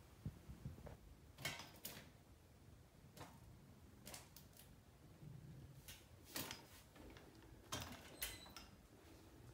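Near silence, broken by about eight faint, short clicks and light rustles scattered unevenly through it.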